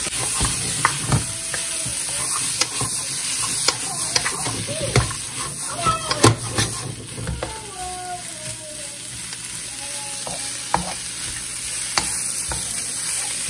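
Sliced Baguio beans (green beans), pork and onions sizzling in a hot wok while a wooden spatula stirs and tosses them, with frequent knocks and scrapes of the spatula against the pan over a steady frying hiss.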